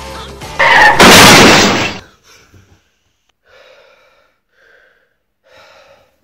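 Music breaks off into a loud, sudden burst of noise lasting about a second. Then a young man gasps for breath three times in short, heavy breaths.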